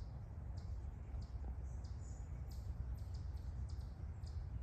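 Woodland ambience: a series of short high chirps, two or three a second and irregularly spaced, over a steady low rumble.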